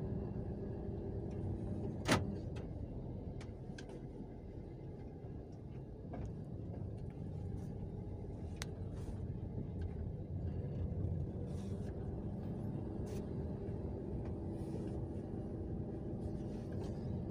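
Small car's engine and road noise heard from inside the cabin while driving, a steady low rumble. There is a sharp click about two seconds in and a few lighter clicks later.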